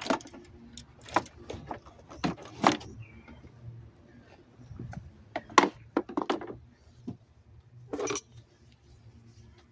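Metal hand tools clinking and rattling as they are handled: a dozen or so sharp, irregular clinks over a faint steady hum.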